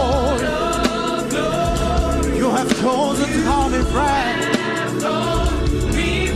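Live gospel music: singers holding and bending long notes with vibrato over a band with bass, keyboard and drums.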